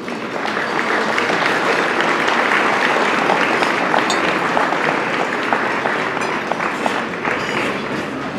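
Audience applauding: many hands clapping at once in a dense, steady applause.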